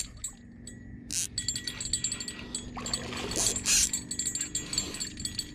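Small bell clipped to a fishing rod jingling as a hooked catfish pulls on the line, with a couple of short rustling bursts from handling the rod, about a second in and again halfway through.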